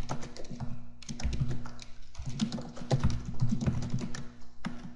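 Typing on a computer keyboard: runs of quick key clicks broken by short pauses about one and two seconds in.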